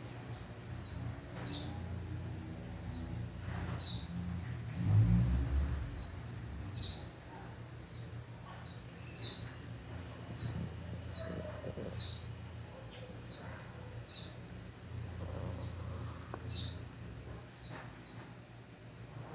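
Hungry stomach growling in low rumbles and gurgles, loudest about five seconds in and swelling again near three quarters of the way through. Over it, short high bird chirps repeat one or two times a second.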